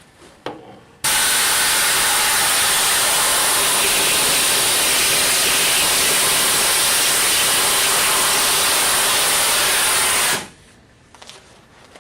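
EXAIR Vac U Gun compressed-air vacuum running: a loud, steady rush of air that comes on about a second in and cuts off suddenly near the end.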